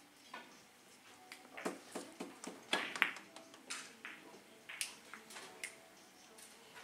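Three-cushion billiard shot: the cue strikes the cue ball, then a string of sharp clicks and knocks as the balls hit each other and the cushions for about five seconds. The clicks are loudest about three seconds in.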